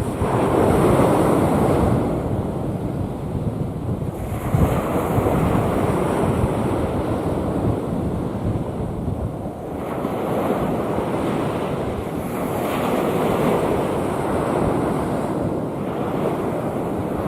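Rough sea, waves breaking and washing in one after another, swelling and easing every few seconds, with wind rumbling on the microphone.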